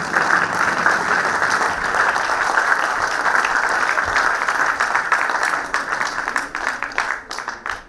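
Audience applauding, thinning out into scattered claps and fading away near the end.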